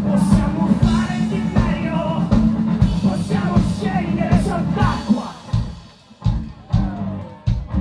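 Live indie rock band playing loud, with electric guitar, bass, drums and sung vocals. About five seconds in the full band drops back, leaving single heavy drum hits spaced out under a held tone.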